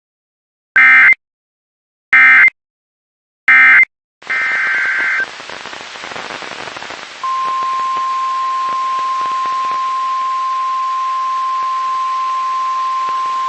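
Emergency Alert System SAME header: three identical short bursts of warbling data tones about a second and a half apart, then a brief further burst as a hiss of radio static comes in. About 7 seconds in, the single steady NOAA Weather Radio warning alert tone begins and holds, the signal that a warning, here a severe thunderstorm warning, follows.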